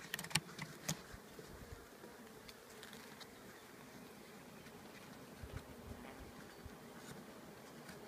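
Honeybee colony humming steadily inside an opened hive, with a few sharp clicks and knocks in the first second.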